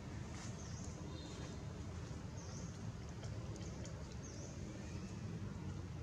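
Outdoor ambience: a steady low rumble with a short, high-pitched chirp repeating about every two seconds and a few faint clicks.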